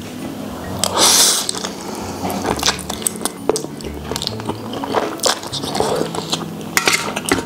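Close-up eating of spicy instant noodles: a loud slurp about a second in, then wet chewing with many sharp clicks, among them metal chopsticks on a steel tray.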